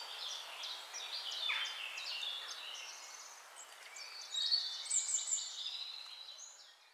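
Several birds chirping and singing, a mix of short calls and trills, busiest about two-thirds of the way through and fading out near the end.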